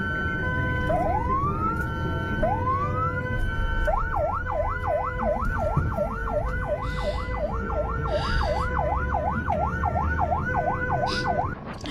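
Emergency vehicle siren heard from inside the vehicle's cab, over the rumble of its engine. It winds up twice, then switches to a fast yelp rising and falling about twice a second, and cuts off near the end.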